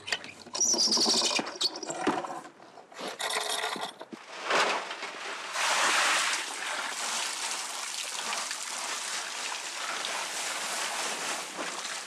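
Water from a garden hose spraying onto sediment in a mesh sieve, a steady hiss from about halfway in. Before it come a few seconds of irregular scraping and knocking.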